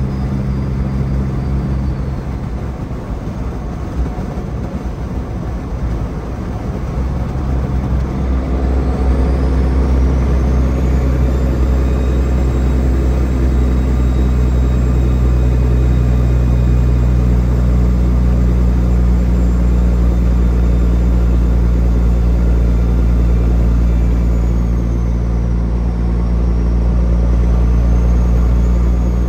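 Peterbilt 379 semi truck's diesel engine running on the road. The engine note drops away about two seconds in, then picks up again around eight seconds and runs steady and louder after that.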